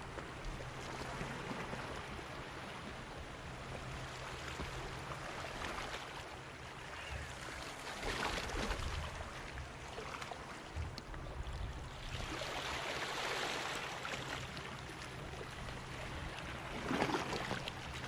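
Seawater washing and sloshing at the shoreline, with small waves surging in three times, the loudest near the end.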